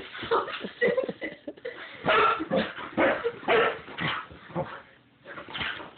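Dog barking and yipping in a run of short, excited bursts, with a brief lull near the end: it is agitated by the smell of perfume spritzed on the pillow.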